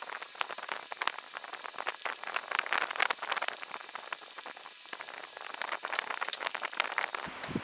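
Paper rustling and crackling as cut strips of dark transfer paper are handled, with a sharp snip of scissors about six seconds in.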